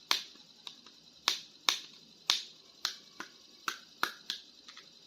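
About a dozen sharp plastic clicks and taps at an uneven pace, from hands handling small plastic action figures and their packaging.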